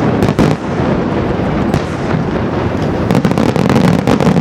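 Fireworks display: aerial shells bursting over a steady echoing rumble, with a few sharp bangs near the start and a fast run of cracks in the last second or so.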